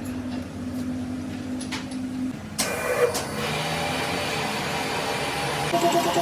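Workshop machinery running: a steady motor hum, then a louder machine starts up suddenly about two and a half seconds in and runs steadily, with a pulsing tone joining near the end.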